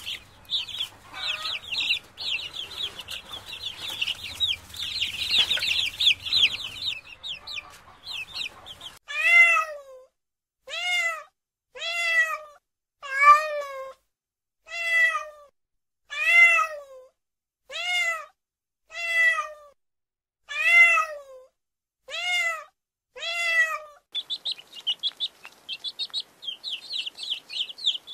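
Baby chicks peeping rapidly and continuously, then a kitten meowing about eleven times, one short call a little over a second apart. Near the end the chicks' high peeping returns.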